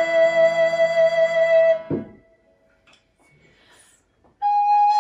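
Alto recorder and viola da gamba holding a sustained chord that stops about two seconds in. After a short near-silence, the recorder enters alone with a long held note near the end.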